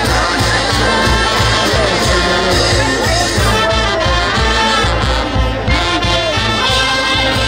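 Loud band music with brass instruments playing over a steady drum beat.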